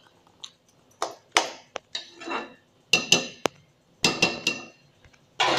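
Spoon clinking and scraping against a cooking pan while stirring thick chicken gravy: a string of sharp knocks, some with a short metallic ring.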